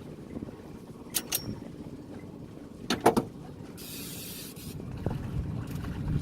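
Wind and water noise on a small boat, with a steady low rumble. A few sharp clicks or knocks come about a second in and again about three seconds in, and a short hiss follows near the middle.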